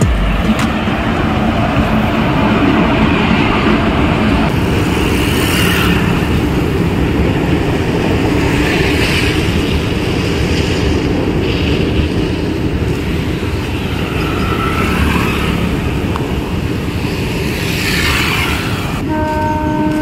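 Motor vehicle travelling on a road: steady engine and road noise that swells a little a few times. About a second before the end a horn starts, one steady tone.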